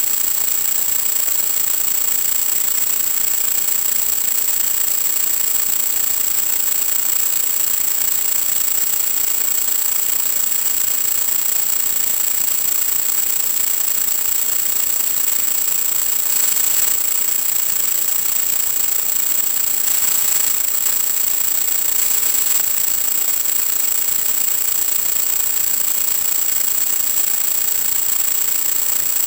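Steady hiss of static with a thin, high-pitched whine running through it, from the audio channel of a 1.2 GHz analog FPV video link. The hiss swells briefly a few times in the second half.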